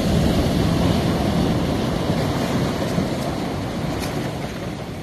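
Ocean waves breaking and foaming surf washing in around large beach stones: a steady rushing wash that swells in the first second and slowly eases off.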